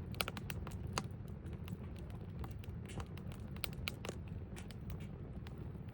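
Campfire crackling: irregular sharp pops and snaps, several a second, over a low steady rumble of burning.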